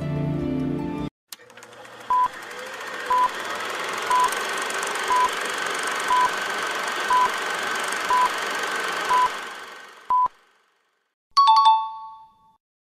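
Music cuts off about a second in. A countdown timer then beeps nine times, once a second, over a hiss that swells and later fades, and ends with a short two-tone electronic chime marking time up.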